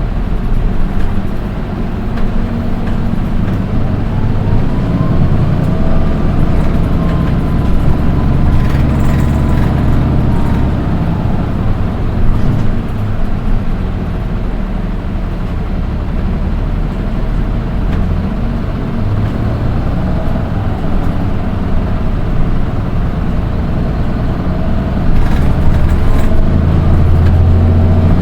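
Nissan Diesel Space Runner RM (PDG-RM820GAN) city bus heard from inside while driving: the engine runs under way with a low rumble and a high-pitched whine that rises and falls in pitch as the bus gathers and loses speed. The uploader notes that this shrill engine note is peculiar to this one bus among its four sister vehicles.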